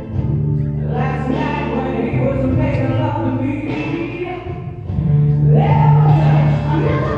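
Recorded music with singing voices over a deep held bass note; the bass drops back about two seconds in and swells up again about five seconds in.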